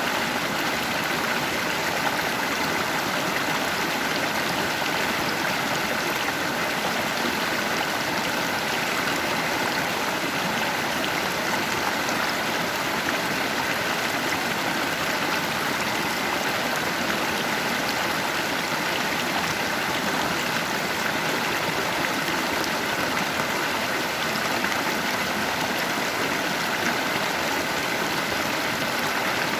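Flowing river water rushing steadily, a constant even babble of a stream current.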